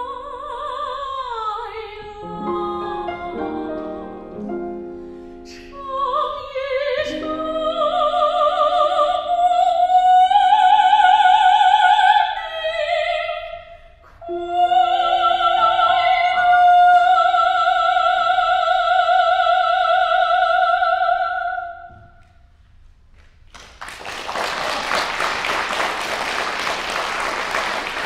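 Operatic soprano singing with grand piano accompaniment, ending on a long high note with vibrato. After a short pause a little over 23 seconds in, the audience breaks into applause.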